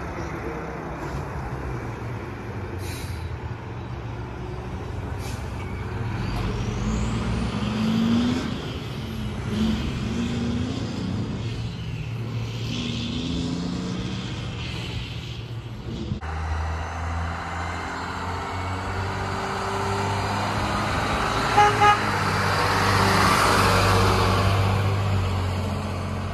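Heavy diesel dump trucks driving past on the road, the engine rumble rising in pitch again and again as a truck pulls away through its gears. After a sudden cut a box truck passes close and drives off, its engine the loudest thing near the end, with two short beeps just before.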